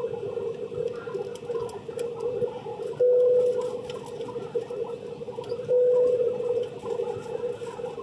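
Steady in-flight cabin hum of an Airbus A320, with a droning tone that swells louder twice for about half a second and scattered light clicks.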